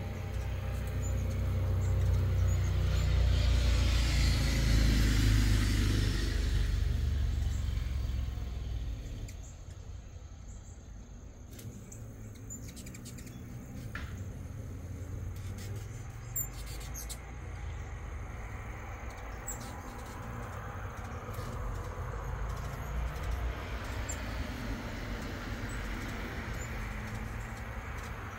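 A vehicle passing by, growing louder to a peak about five seconds in and fading away by about nine seconds, followed by a steady low rumble. Small birds chirp here and there throughout.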